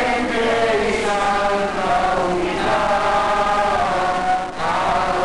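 A congregation singing a hymn together, many voices on long held notes that glide from one to the next.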